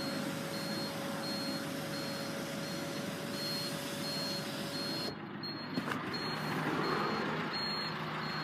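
Electric motor of a Fiat 500L's panoramic-roof blind running with a steady hum over the car's cabin noise, cutting off about five seconds in as the blind finishes opening, with a click shortly after.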